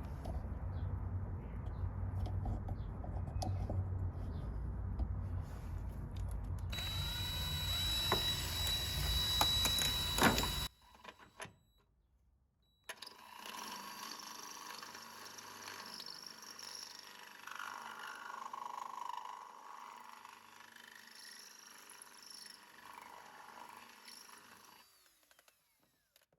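Electric drill with a 1/4-inch bit boring out a hole in a metal VW Beetle deck lid hinge piece. It runs steadily for about ten seconds, a steady high tone joins in about seven seconds in, and then it stops abruptly. After a short silence come fainter handling sounds.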